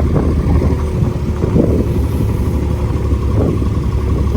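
A motor vehicle's engine running steadily, with a constant low hum.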